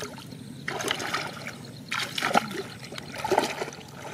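Water splashing and sloshing in uneven bursts as a person wades into a pond, wading in until waist-deep.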